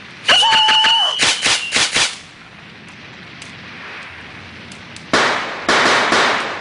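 Animated fireworks sound effect. Firework tubes launch with a steady whistle and a quick run of sharp pops, then about five seconds in a shell bursts into a loud crackle of sparks.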